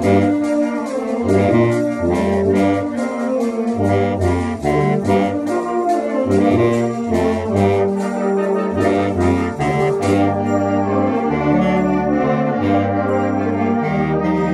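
Clarinet and bass clarinet playing a concert band piece, with the bass clarinet taking the low line, over a band accompaniment with brass and a steady fast percussion beat. The percussion stops about ten seconds in, leaving longer held chords.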